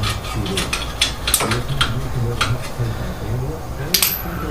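Sharp metallic clicks and clinks of hand tools being worked, roughly one every half second, over faint, indistinct talk in the background.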